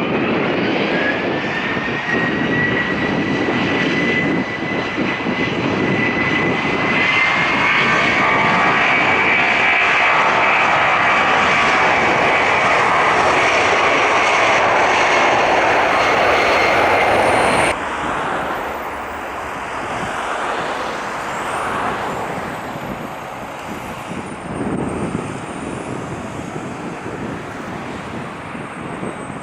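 Boeing 757's two turbofan engines at take-off power: a whine rises at the start, then holds steady over the loud jet noise. About eighteen seconds in the sound drops suddenly to a fainter, steady jet noise.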